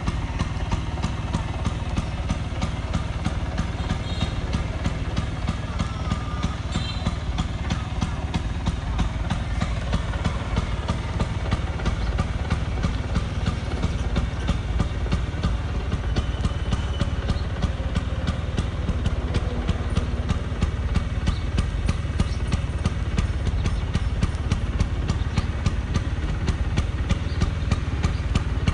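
Vintage Vespa 150 scooter's single-cylinder two-stroke engine idling steadily, with a fast, even firing pulse and a slight rise in loudness about halfway through.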